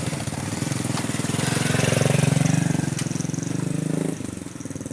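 A vehicle engine running with a rapid, even firing pulse, growing louder toward the middle and dropping away sharply about four seconds in.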